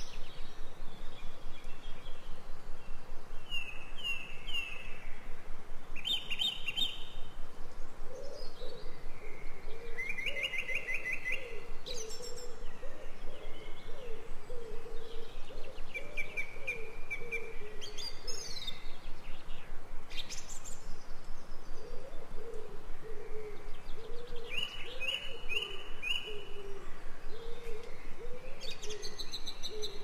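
Songbirds singing in woodland, with short trilled and sweeping phrases every few seconds. Underneath, a lower wavering call repeats through much of the middle and end, over a steady background hiss.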